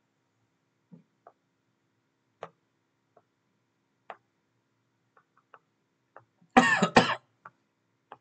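A person coughs twice in quick succession about six and a half seconds in. Faint, scattered clicks come before and after it.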